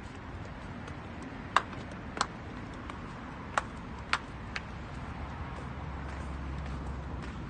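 Steady outdoor rumble of wind on the microphone, with five sharp clicks or taps spread unevenly through the first half.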